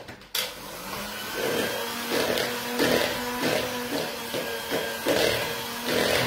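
Electric hand mixer switched on about a third of a second in and running steadily, its beaters working a thick batter of egg yolks, honey, hazelnut flour and coconut flour. A regular swish comes and goes as the beaters sweep through the bowl.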